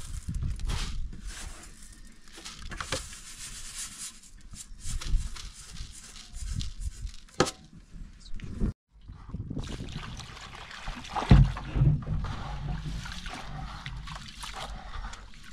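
Rice being handled and then washed by hand in a plastic basin of water: sloshing and splashing. There are sharp clicks from a metal tray, one of them loud about seven seconds in, all over a low rumble.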